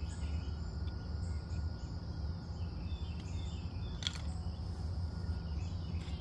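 Crickets chirring steadily over a low outdoor rumble. A single short clink about four seconds in comes as an insulated bottle holding ice is tipped up to drink.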